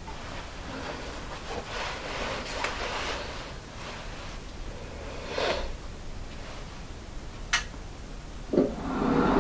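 Faint rustling and scraping of handling at the lathe, with a sharp click about seven and a half seconds in. Near the end the Union Jubilee wood lathe is switched on with a knock and its motor starts a steady hum that grows louder.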